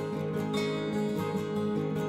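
Instrumental background music with plucked string notes.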